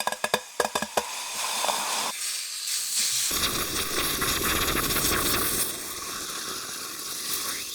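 Very hot material meeting water: a quick run of sharp crackles and short chirps, then steam hissing and sizzling, which from about three seconds in becomes a broader, steady hiss and cuts off abruptly at the end.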